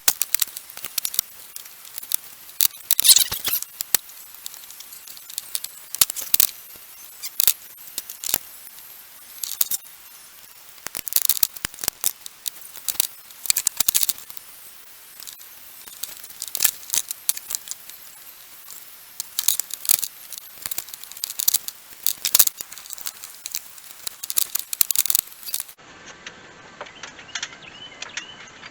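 Irregular sharp clicks and metallic clinks of hand tools against metal parts while the water pump, hoses and clamps are refitted, some coming in quick clusters.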